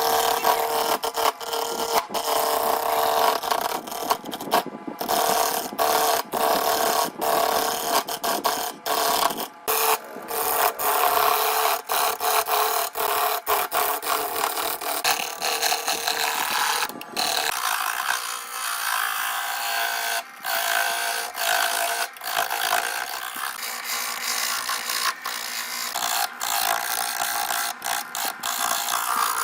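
A power tool working wood, running with a steady hum under a rough rasping noise, broken by frequent short abrupt gaps.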